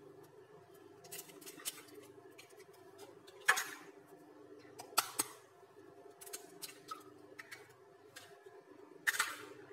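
Eggs being cracked one after another into a plastic mixing bowl: scattered sharp taps of shell, the loudest about three and a half seconds in and again near the end, each followed by a brief rustle as the shell is pulled apart and the egg drops in. A faint steady hum lies underneath.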